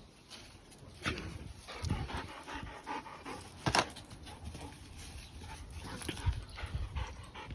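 A lurcher panting in irregular bursts, with one sharp, louder noise about halfway through.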